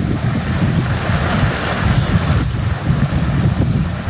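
Muddy flash-flood water rushing and churning across a dirt road and ditch, a steady roar that swells for a moment about a second in. Wind buffets the microphone underneath.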